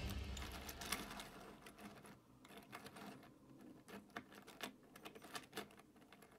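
Irregular, light clicking and rattling of a 3D-printed PLA articulated dragon's jointed segments as hands move and pose it, with small taps of plastic on a wooden tabletop.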